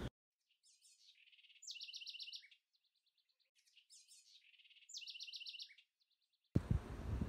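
A small bird singing the same short, high phrase twice, each time ending in a fast trill of about seven notes, with nothing else heard behind it.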